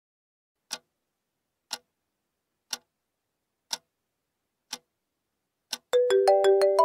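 A clock ticking, six single ticks one second apart. Near the end a mobile phone ringtone starts, a quick melody of bright repeated notes.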